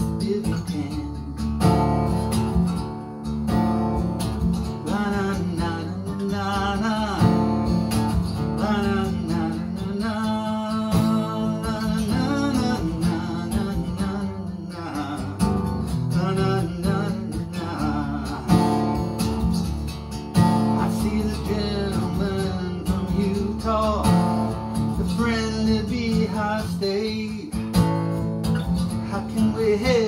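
Acoustic guitar strummed and picked as a steady accompaniment, with a man singing over it in places.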